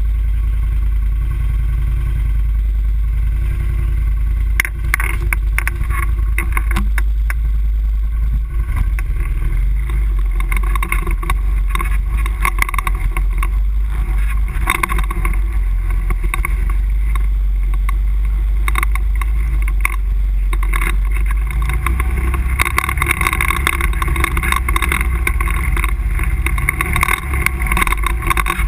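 An ATV engine running steadily as the quad rides over a rough, rutted dirt trail, with scattered knocks and rattles throughout.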